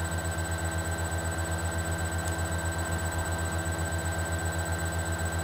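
Steady background hum made of several fixed tones, with a low throb that pulses quickly and evenly.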